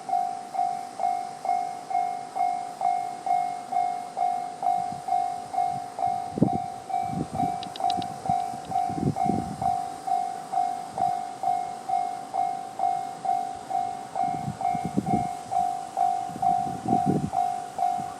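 Japanese level-crossing alarm in the JR standard sound, an electronic bell ringing at a steady pace of about two and a half strikes a second. Low wheel thuds and rumble from a passing Shinano Railway SR1-series electric train come in around the middle and again near the end.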